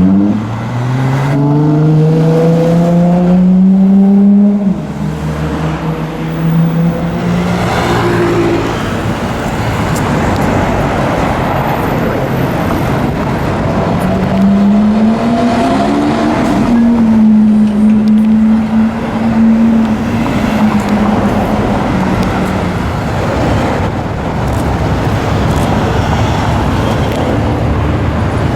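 A high-performance car engine accelerating hard, its note climbing for about four seconds, dropping at an upshift and fading away into traffic noise. Around the middle a second engine rises and then holds a steady note for several seconds before fading.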